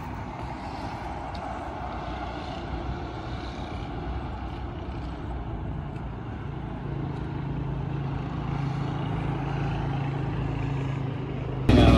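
Road traffic on a highway below: a steady rush of passing vehicles, with a heavy vehicle's engine drone growing louder from about halfway through. Near the end it cuts suddenly to a much louder sound.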